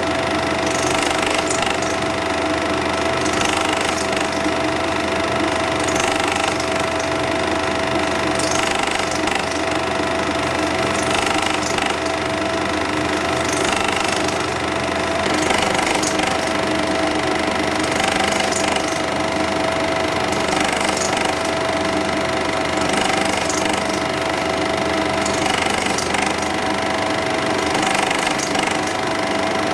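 8mm cine projector running, a steady mechanical whirr and fast clatter with a constant tone held under it.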